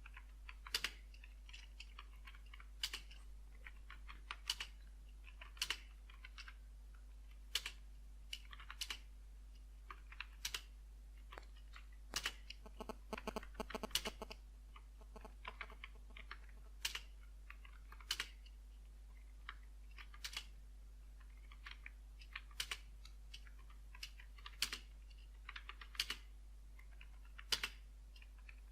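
Keystrokes on a computer keyboard, typed unevenly with short pauses and a quicker run of keys about halfway through.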